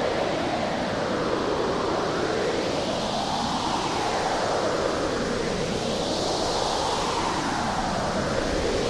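Strong, tornado-like wind blowing steadily, its pitch swelling up and down in slow waves about every three seconds.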